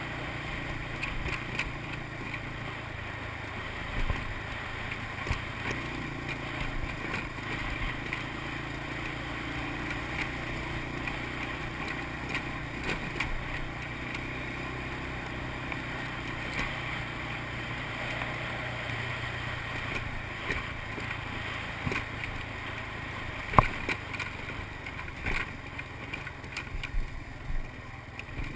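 1986 Honda TRX250 FourTrax ATV's single-cylinder engine running steadily while under way, its note dropping a little past halfway. Sharp knocks now and then, the loudest about three quarters in.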